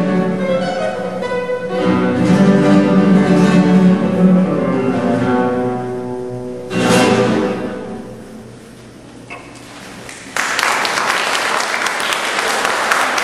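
Solo flamenco guitar playing the closing phrases of a bulerías, ending on a hard-strummed final chord about seven seconds in that rings and fades. Audience applause breaks out about three seconds later.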